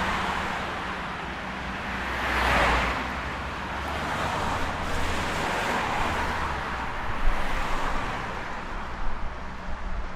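Road traffic: a steady wash of car tyre and engine noise, with one car passing close about two and a half seconds in and others going by more faintly later.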